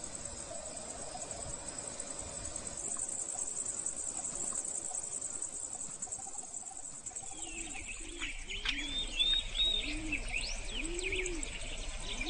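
A steady, high-pitched chorus of insects, joined from about seven seconds in by a dove cooing in repeated low calls and small birds chirping.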